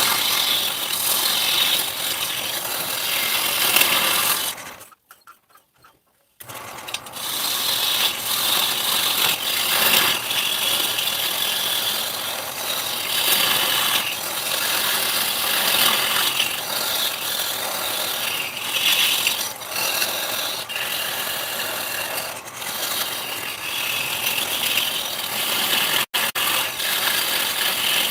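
Wood being worked by a machine or tool: a steady mechanical rasping and grinding. It stops for about a second and a half about five seconds in, then resumes.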